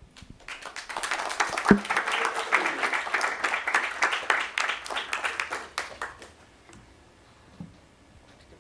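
Audience applauding: the clapping starts about half a second in, is fullest over the next few seconds, and dies away about six seconds in.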